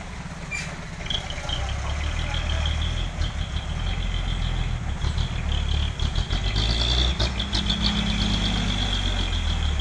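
Old Nissan diesel truck engine labouring in low gear as the heavily loaded truck creeps uphill past: a deep rumble that swells about a second in, with a steady high whine over it.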